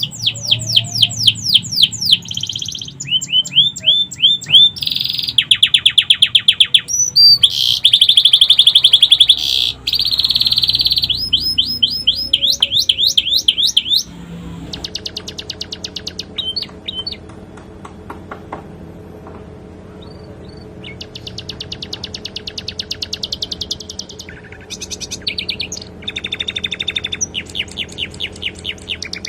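Domestic canary singing a long, fast song of rapid trills and quickly repeated chirps, its repertoire filled with phrases learned from the sikatan londo. The song is louder in the first half and softer from about halfway, with a faint steady hum underneath.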